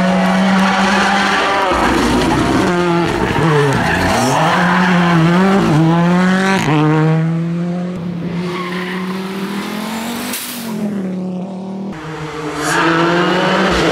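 Ford Fiesta Rally2's turbocharged four-cylinder engine on full song, its pitch swooping down and back up several times through downshifts and upshifts as the car brakes for a bend and accelerates away. The sound then fades, with one sharp crack about ten seconds in. Near the end the engine comes up again as the car approaches.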